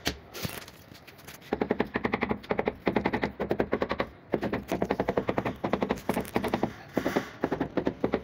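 A mallet rapidly tapping a large ceramic wall tile to bed it into the mortar, in quick volleys of about ten taps a second with short breaks between them.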